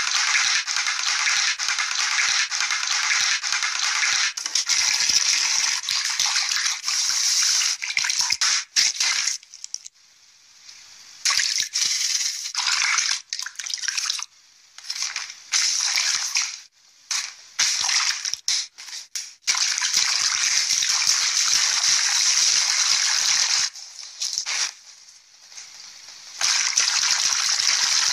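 Wet squelching, slopping and splashing of hands mashing objects in bowls of goo and slime. It comes in long stretches broken by a few short quiet gaps, and sounds thin, with no low end.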